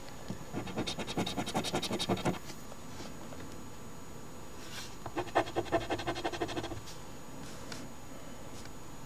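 Two bursts of rapid scratching as the scratch-off coating is scraped from an OLG Animal Crossword instant lottery ticket. The first burst lasts about two seconds, and the second starts about five seconds in.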